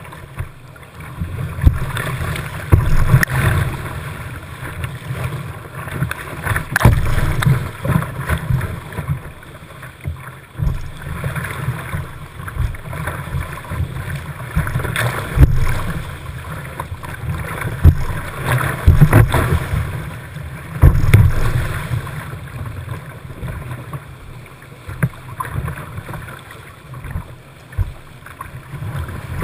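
Whitewater rapids rushing and splashing around a kayak, with a heavy low rumble and frequent irregular loud splashes as the boat runs through the waves.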